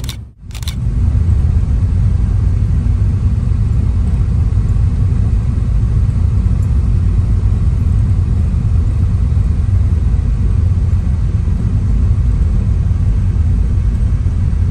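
Steady low road and engine rumble heard inside the cabin of a moving Ford Transit van, with a brief dropout right at the start.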